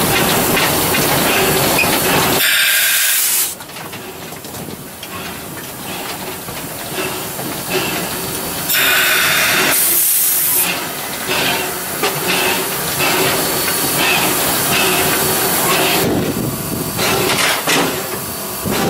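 Steam locomotive heard from inside its cab: steam hissing in several bursts over the locomotive's steady running noise.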